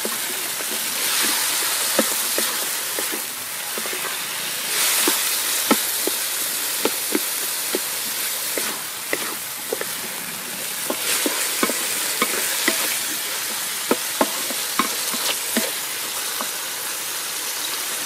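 Sliced onions and tomatoes sizzling in oil in a metal wok, stirred with a wooden spatula that scrapes and taps against the pan many times.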